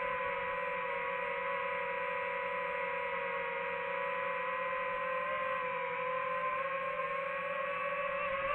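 DJI FPV drone's motors and propellers whining steadily in low, slow flight. It is a held whine of several steady tones that waver slightly in pitch.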